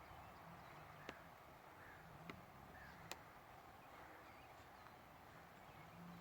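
Near silence: faint outdoor hiss broken by three faint sharp clicks, about a second apart.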